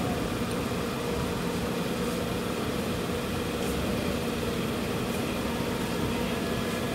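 Steady running noise of a moving passenger train, heard from inside the coach: a constant rumble and hiss from the wheels on the track, with no clear change in pace.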